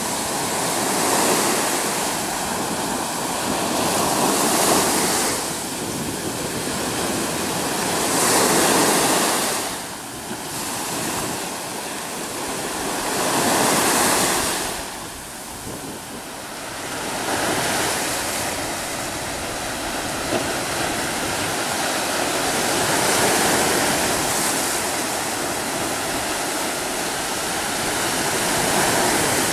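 Sea surf breaking and washing against shoreline rocks, the rushing noise swelling and fading with each wave every few seconds.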